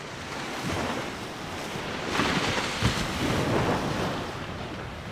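Ocean surf washing onto a sandy beach, mixed with wind buffeting the microphone; the noise swells through the middle, with a brief low bump about three seconds in.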